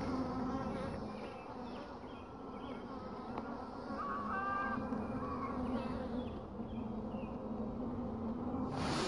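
Honeybee colony in an open hive buzzing steadily, the low hum of thousands of bees' wings.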